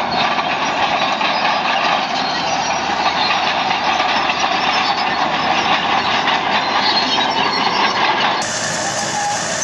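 Heavy earth-moving machinery working, its engine under a dense rattling, clattering noise. The sound changes abruptly near the end as another machine's recording cuts in.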